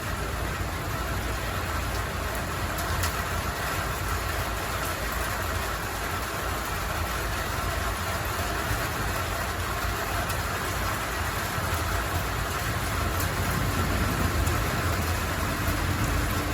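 Thunderstorm noise: a steady rush of rain and wind with a deep rumble underneath, holding level throughout.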